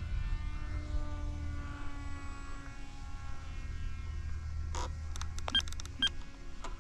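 Electric motor and propeller of a small sub-250-gram RC foam plane in flight, a thin whine whose pitch falls slowly as it passes, over a low steady rumble. About two-thirds in come a few short clicks and beeps.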